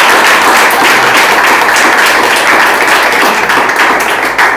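Congregation applauding: many hands clapping densely and steadily.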